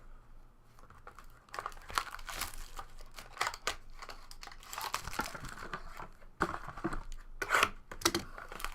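Trading-card box packaging crinkling and tearing in irregular bursts with sharp crackles, as the box and its wrapping are opened by hand.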